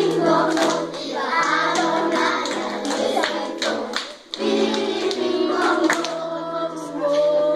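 Children's choir singing a song together in unison, with hand claps on the beat and a brief break a little past the middle.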